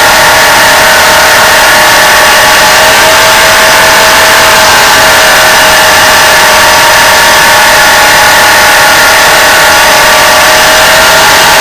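Belt sander running loudly and steadily while grinding a leaf spring steel blade blank flat. A constant motor whine sits over a rough grinding hiss.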